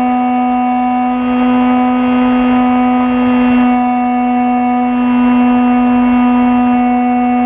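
Electric motor and propeller of a Bixler RC plane whining at a steady pitch in cruising flight.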